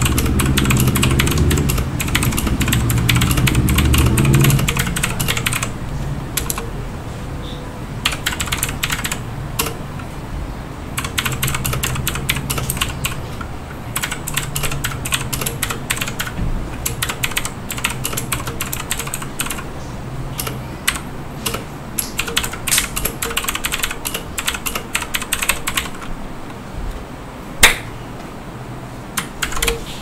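Typing on a Tecware Phantom RGB mechanical keyboard: rapid clacking of the key switches in bursts with short pauses, and one louder key strike near the end.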